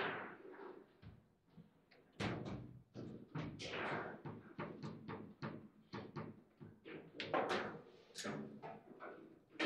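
Table football match in play: the ball struck by the figures and the rods knocking against the table, a rapid, irregular series of sharp clacks and knocks.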